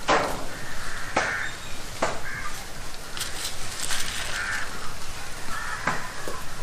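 Crows cawing several times at intervals, with a few sharp clicks in between.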